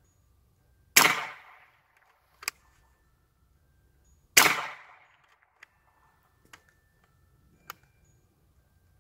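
Two loud shots from a Hatsan Hercules Bully .45 calibre PCP air rifle, about three and a half seconds apart, each with a short fading report. Lighter sharp clicks follow between and after them.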